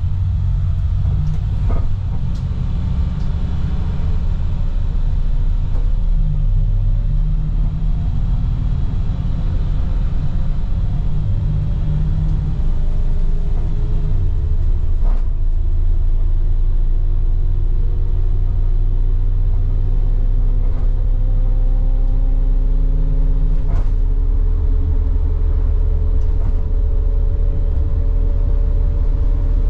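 Cabin of a 2010 IC FE300 school bus with a MaxxForce DT diesel, heard from a rear seat while driving: a heavy, steady low rumble of engine and road. Through the second half a whine climbs slowly in pitch, and a few sharp rattles sound about 2, 15 and 24 seconds in.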